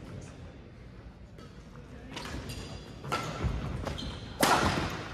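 Badminton rally on a hardwood gym court: a few shoe squeaks and footfalls, then a loud, sharp racket hit on the shuttlecock near the end as a player jumps to smash.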